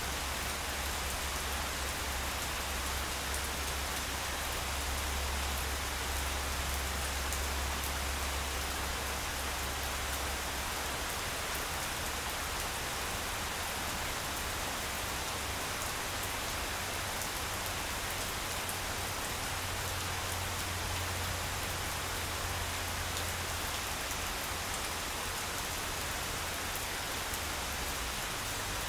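Steady rain falling on grass, an even hiss with fine drop ticks. Underneath runs a low rumble, stronger in the first ten seconds and again around twenty seconds in.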